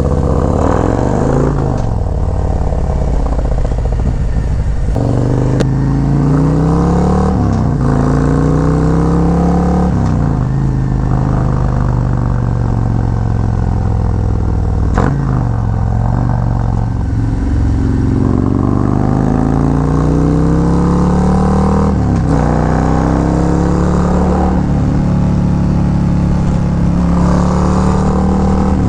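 Harley-Davidson Road Glide's Milwaukee-Eight V-twin running through a Khrome Werks Outlaw 3 2-into-1 exhaust while riding, accelerating and shifting up through the gears: the pitch climbs and then drops at each shift, about six times. The exhaust note is still deep, but raspier.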